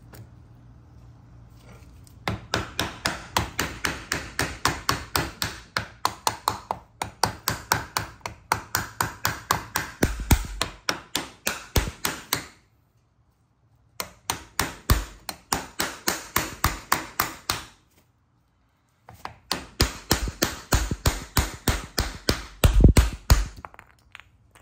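Hammer tapping on a block of wood held against a PVC pipe, driving a metal dust cap onto a wheel hub. Rapid taps, about four a second, in three runs with short breaks between them; the hardest blows come near the end.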